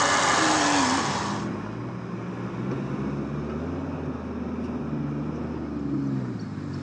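Four-wheel-drive truck engine running and revving up and down while working through snow. A loud hissing rush over a steady tone opens the sound and cuts off suddenly about a second and a half in.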